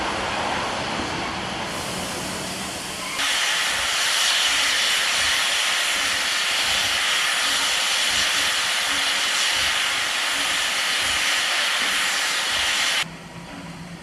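Steam locomotive FS 740 295 letting off steam in a loud, steady hiss that starts suddenly about three seconds in and cuts off abruptly near the end. Before it, quieter mixed train and station noise.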